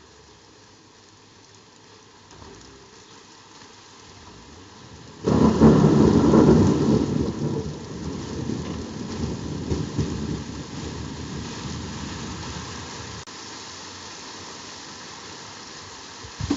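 Steady rain, then about five seconds in a sudden clap of thunder that rumbles on for several seconds as it fades. A short thump comes near the end.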